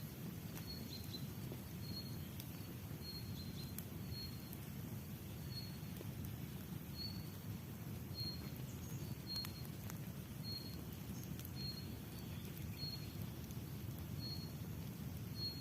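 Outdoor ambience: a steady low rumble with a short, high chirp from a small animal repeating about once a second, and a few faint clicks.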